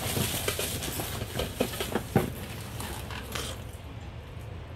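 Rummaging through cardboard boxes and packaged items: rustling with scattered sharp clicks and knocks as things are picked up and moved, trailing off near the end.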